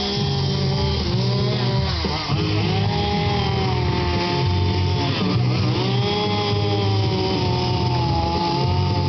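Two-stroke chainsaw running at high revs during chainsaw carving. Its pitch sags briefly about three times, near the start, around two seconds in and around five seconds in, and climbs back each time.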